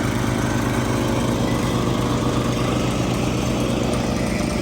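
MechMaxx 6-inch wood chipper's petrol engine running steadily, its note shifting slightly about a second in.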